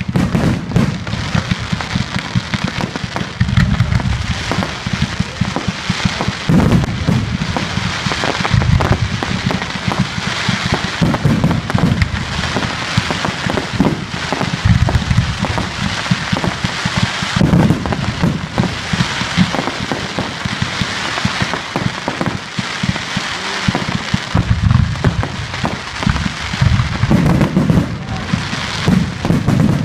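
Public firework display: a continuous barrage of rapid crackling pops, with repeated deep booms from shell bursts.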